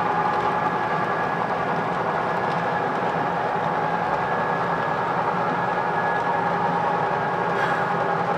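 Model passenger train running on a layout: a steady mechanical rumble with a constant, even hum that does not change.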